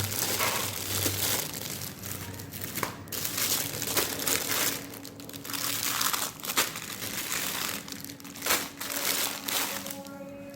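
Plastic packaging crinkling and rustling as it is handled and opened, with scattered sharp clicks.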